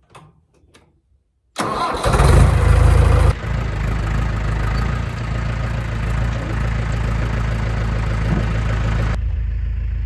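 Farm tractor engine cranked by its starter on a jumper pack, after a dead battery. It catches after about a second and a half of cranking and settles into a steady idle.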